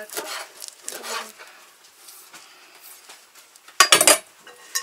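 Kitchen knife chopping fresh herbs on a wooden cutting board: a quick run of soft chops. Near the end the metal knife is set down on the countertop with a short, loud clatter.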